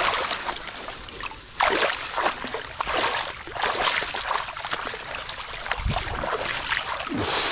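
Water splashing and sloshing in irregular surges about a second apart, with a dull thud near the end.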